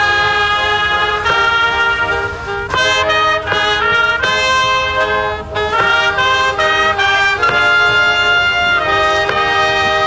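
Brass band playing held chords led by trumpets, the notes changing every second or so: ceremonial music for a royal arrival.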